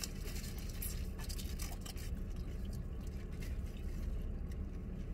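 Faint wet chewing and mouth noises of people eating soft donuts, with small clicks here and there, over a low steady rumble.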